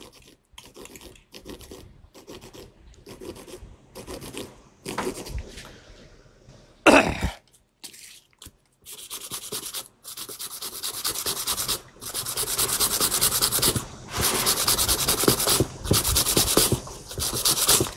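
Fine 3000-grit sandpaper rubbed back and forth over a steel wire hook shank to sand off rust and brighten the metal. The strokes are scattered and lighter at first, then quick, dense and louder from about halfway. A single brief louder noise comes about seven seconds in.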